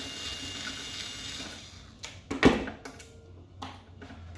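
Several sharp knocks and clicks of metal parts being handled while the last mounting bolt comes out of a garage door opener's motor, the loudest knock about two and a half seconds in.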